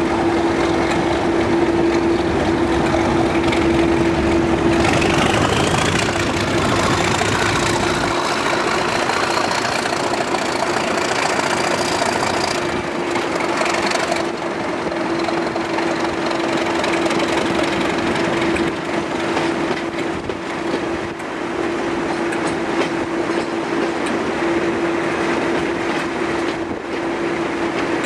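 British Rail Class 37 diesel locomotive's English Electric V12 engine working hard, heard from the cab window as it pulls away. A high whistle rises in pitch from about five seconds in to about twelve seconds in, then fades back.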